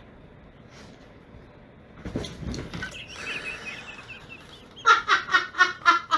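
An animal calling: a wavering call about three seconds in, then a quick run of five short, loud calls near the end.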